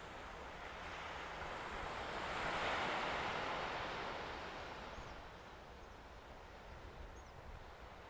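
Small waves lapping onto a sandy beach in a calm bay. One wash swells up and fades away about three seconds in, with wind rumbling on the microphone underneath.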